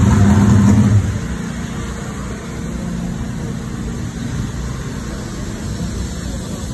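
An engine running steadily, loud for about the first second, then dropping to a lower, steady rumble.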